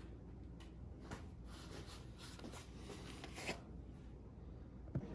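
Faint scratchy rustling and crackling with a few sharp clicks as a freshly cured carbon-fibre mudguard is worked free of its mould.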